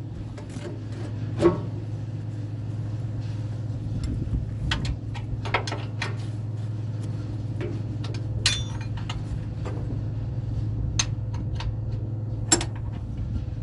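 A machine running with a steady low hum, overlaid by scattered sharp clicks and knocks: one loud knock about a second and a half in, and more around the middle and near the end.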